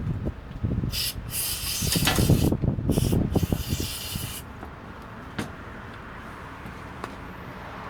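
Knocking and clattering as the metal parts of a rust-seized gas brush cutter are worked, with three short bursts of hissing spray in the first half. It then quiets to a low background with a single click about five seconds in.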